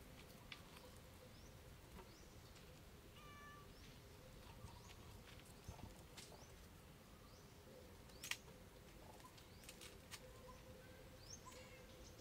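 Faint calls of young macaque monkeys: a short pitched coo about three seconds in and scattered short, high rising chirps, over a faint steady hum. A sharp click a little after eight seconds is the loudest sound.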